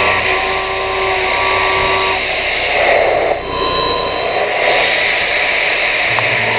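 Milling cutter cutting metal on a CNC milling machine: a steady machining whine over a loud hiss. It dips briefly about three and a half seconds in, and its tones shift a couple of times.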